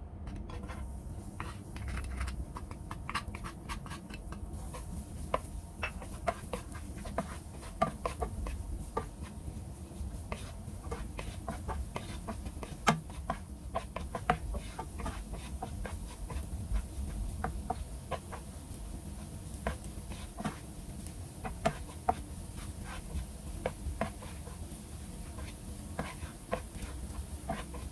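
Minced garlic frying in hot oil in a nonstick pan: an irregular crackle of pops and ticks, with a hiss that sets in about four seconds in, mixed with the knocks and scrapes of a wooden spatula stirring it against the pan.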